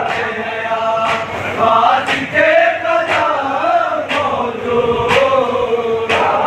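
A group of men chanting a nauha together in unison, with a sharp slap about once a second from matam (chest-beating) keeping the beat.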